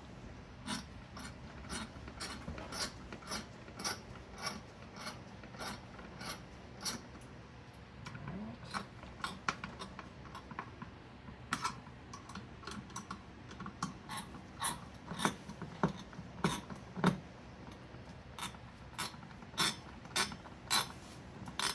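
Spring-loaded mounting screws of a CPU cooler being screwed down onto the motherboard: the springs under the screw heads click with each turn, a steady run of small clicks about two or three a second, with a few louder ones about two-thirds of the way through.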